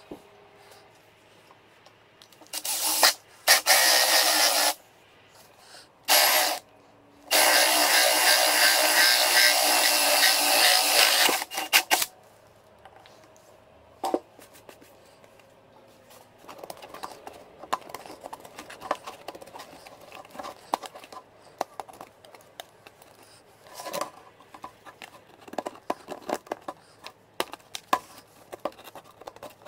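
Power drill with a Bosch hole saw cutting a hole through a plastic car hubcap: two short bursts, then a steady run of about four seconds. Afterwards, light clicks, knocks and scraping as the cut hubcap is handled.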